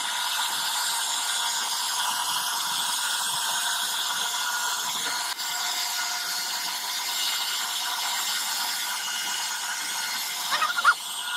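CNC router spindle running and its carving bit cutting into a wooden door panel: a steady high whine over a continuous cutting hiss, with a few brief squeals near the end.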